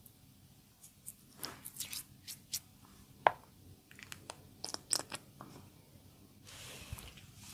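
Close-up handling noises of a facial treatment: scattered crackles and light taps, one sharp click about three seconds in, and a short hiss of rubbing near the end.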